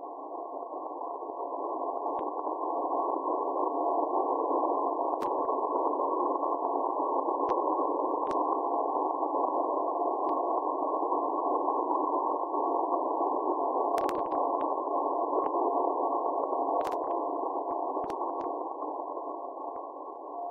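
Shortwave receiver audio in CW mode: a steady hiss of band noise with a faint tone near 700 Hz from the 1-watt Radio Pirana beacon on 6342 kHz, coming and going and clearer in the second half. A few sharp static clicks cut through.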